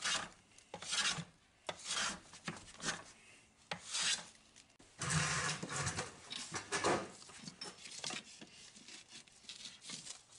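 Hand plane shaving a rough wooden plank, a series of rasping strokes about every half second to second, one longer stroke around the middle. The strokes give way to fainter scratches near the end.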